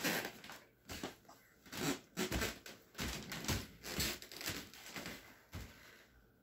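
Someone moving about and handling things: irregular rustles, taps and knocks, two or three a second, getting quieter near the end.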